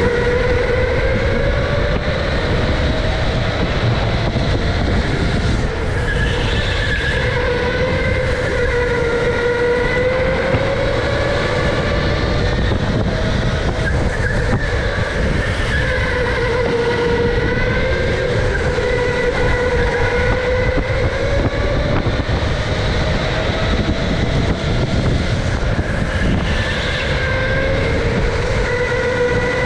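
Electric go-kart motor whining on the move, its pitch rising and falling with the kart's speed, over a steady low rumble.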